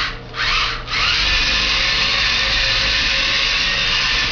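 Spykee robot's small electric drive motors whirring as it drives off: two short bursts, then a steady run of about three and a half seconds.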